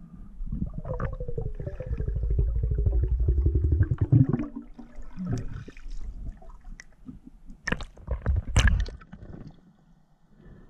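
Underwater sounds picked up through a diving camera's housing: a buzzing, pulsing tone that falls steadily in pitch over about four seconds, then a few sharp knocks a few seconds later.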